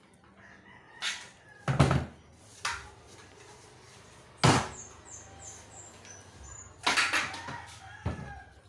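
Aluminium window-frame profiles knocking and clattering as they are handled and fitted together: several sharp metallic knocks, the loudest about 2 and 4.5 seconds in, with a few faint high squeaks between them.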